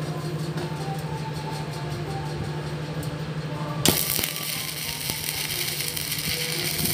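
Electric welding arc struck about four seconds in with a sharp crack, then crackling and hissing steadily as the weld runs, over a steady low hum.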